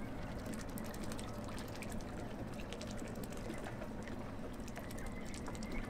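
Water lapping and trickling gently, with many small splashing ticks over a steady low wash.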